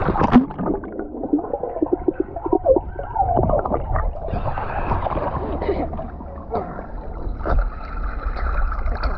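Swimming-pool water splashing and bubbling, muffled, with a cluster of sharp splashes near the start and another about seven and a half seconds in.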